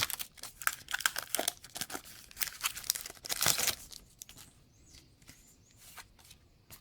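Pokémon TCG booster pack wrapper being torn open and crinkled, a dense crackling for about four seconds, then only faint scattered rustles as the cards are handled.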